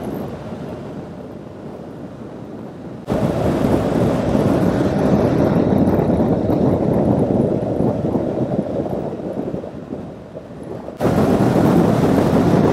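Wind and road noise rushing over the microphone of a moving motorcycle, a steady roar with no clear engine note. It jumps louder about three seconds in, dips briefly around ten seconds, then comes back loud.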